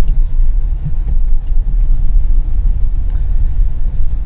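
A car on the move, heard from inside its cabin: a steady low rumble of engine and road noise.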